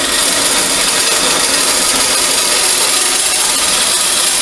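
Converted 12-inch Craftsman vertical band saw running steadily while cutting 3/16-inch steel plate, a continuous sawing noise with a lot of high-pitched hiss.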